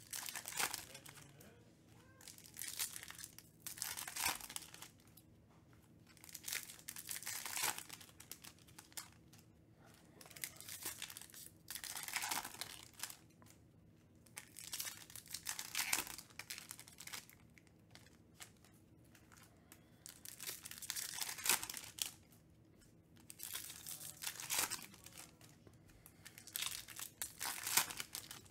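Foil trading-card packs being torn open, their wrappers crinkling in short rustling bursts every three to four seconds with quiet between.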